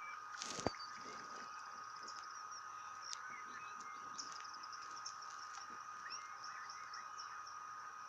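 Steady chorus of calling insects and frogs: a continuous high trill with a pulsing higher buzz and scattered short chirps. A single sharp click comes under a second in.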